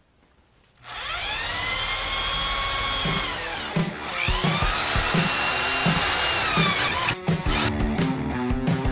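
Corded electric drill spinning up with a rising whine about a second in and running steadily, dipping in pitch briefly midway as the trigger is eased, then winding down. Near the end it runs in short stop-start bursts as the bit is set to a metal bracket held in a vise.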